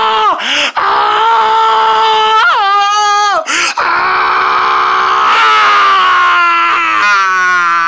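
A person's long drawn-out falling scream, held in loud steady notes with two short breaks for breath, the pitch sliding down near the end.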